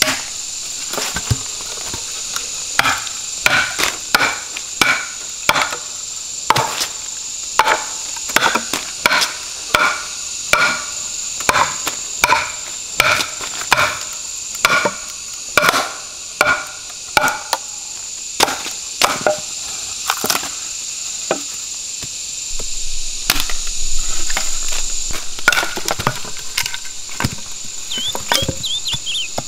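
A wooden baton striking the back of a machete blade set into the top of an upright bamboo tube, splitting the bamboo: a long run of regular knocks, about one and a half a second, each with a short hollow ring. Near the end the knocks give way to rougher cracking and scraping as the bamboo splits open. A steady high insect drone runs underneath.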